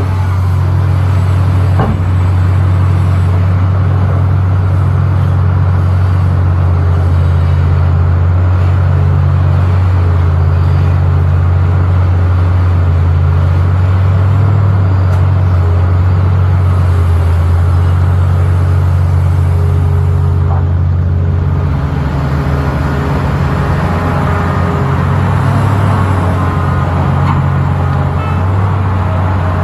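Komatsu excavator's diesel engine running with a steady, deep drone. About two-thirds of the way through the drone briefly weakens, then goes on more unevenly.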